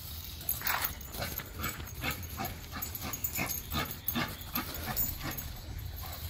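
A dog making a string of short, irregular whines and grunts while playing, over a steady low rumble.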